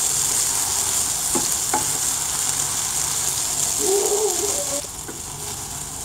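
Marinated soya chunks sizzling in shallow oil in a nonstick frying pan while being stirred with a spatula, with a couple of short knocks of the spatula against the pan. The sizzle drops noticeably quieter about five seconds in.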